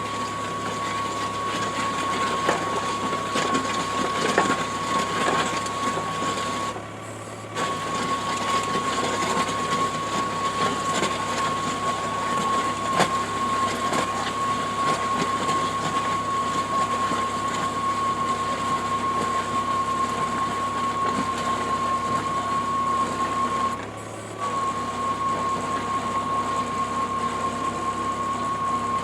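A 450 mm earth auger drilling through a hard blue rock crust into clay. It runs with a steady high whine over a rough rattling of the bit, and cuts out briefly twice, about seven seconds in and near the end.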